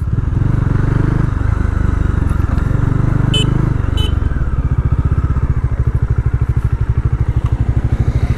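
Motorcycle engine running at road speed with wind noise on a helmet-mounted camera. Two short high blips sound a little past three and four seconds in.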